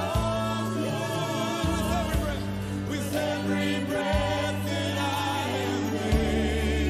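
Gospel worship music: several voices singing held, wavering notes over sustained bass notes that change about every two seconds.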